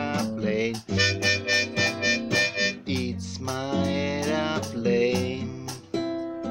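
Harmonica played from a neck holder over strummed acoustic guitar, a short harmonica melody between sung lines with the guitar keeping a steady rhythm.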